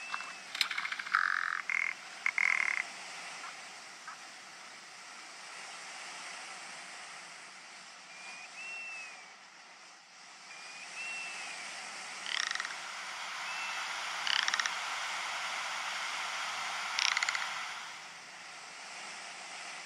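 Ptarmigan giving dry, croaking rattle calls: a cluster of loud rattles in the first three seconds, then three shorter rattles spaced about two seconds apart later on. A few short high chirps come between them, over a steady hiss.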